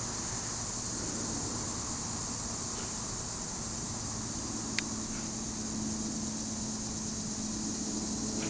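Steady outdoor background noise with a high-pitched hiss or insect-like drone. A low, even hum like a distant engine or air-conditioning unit comes in about halfway through, and there is one sharp tick about five seconds in.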